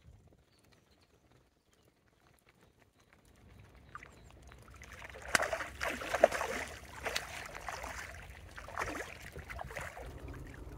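A hooked tench splashing and thrashing at the water's surface as it is played in to the landing net beside the reeds. The splashes begin about four seconds in and come thick and irregular after that.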